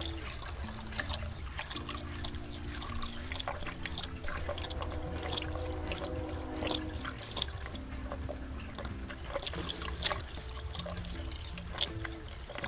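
Antifreeze coolant pouring from a jug through a funnel into a car's cooling system, trickling steadily with scattered small pops, over a low steady hum and held low tones.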